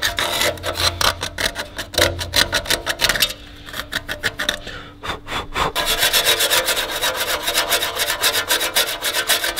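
Hand scrubbing of oxidised aluminium on a wheel carrier: rapid back-and-forth abrasive strokes, several a second, with a short let-up about midway, as flaking corrosion is cleaned off around the wheel-speed sensor seat.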